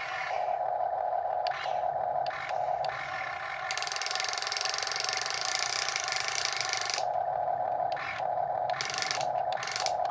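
Small electric gear motors of a Huina 1/14 scale RC excavator whining as the model works, with a louder, harsher gear grinding for about three seconds in the middle.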